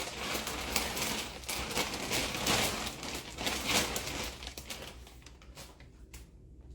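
Plastic vacuum storage bags crinkling and rustling as they are handled, a rapid irregular crackle that dies down about five seconds in.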